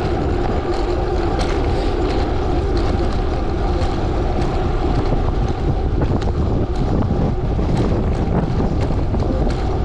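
Wind rushing over the microphone and bicycle tyres rolling on gravel during a ride, a steady loud rumble with scattered sharp clicks and knocks.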